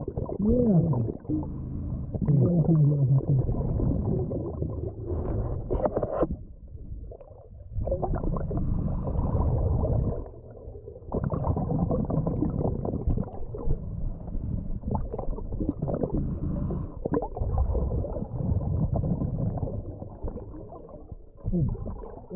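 Muffled, low rumbling and gurgling of a camera recording underwater in a creek current, the sound swelling and dropping away every few seconds. A few short moaning pitched sounds come in the first three seconds, and sharp knocks come around five to six seconds in.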